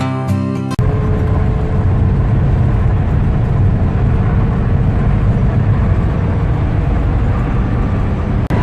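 Volkswagen Type 2 bus driving: a steady rumble of engine and road noise. A strummed acoustic-guitar intro cuts off just under a second in.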